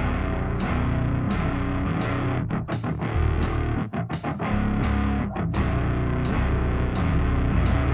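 Heavy rock band playing with distorted electric guitar, bass and drums, coming in all together at the start after a stick count-in, with the drums striking a regular beat about twice a second.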